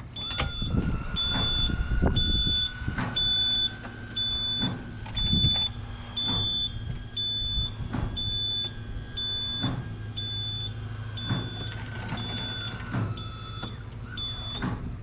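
An electronic warning beeper beeps about twice a second, high and even, over a steady machine hum, with irregular knocks and clatter.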